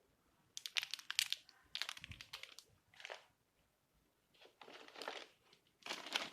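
Crinkly plastic packaging rustling in about five short bursts as board game cards and pieces are handled.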